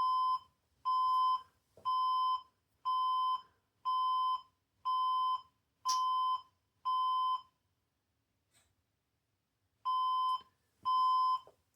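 HP Compaq dc7100 desktop's motherboard speaker sounding its POST beep code: even, high beeps about one a second, eight of them, a pause of about two and a half seconds, then two more as the nine-beep pattern starts again. Nine beeps is the code that HP's documentation gives for a dead power supply. A faint click about six seconds in.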